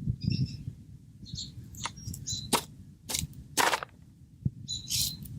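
Small birds giving short, sharp chirps and calls, about a dozen quick notes in irregular bursts, over a low, steady rumble of wind on the microphone.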